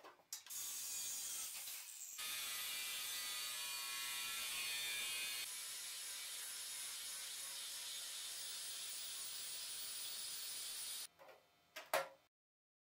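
Handheld angle grinder running and grinding into a metal rod clamped in a vise: a steady, hissy grinding noise with a short break about two seconds in. It stops about eleven seconds in, followed by two sharp knocks near the end, the second the loudest.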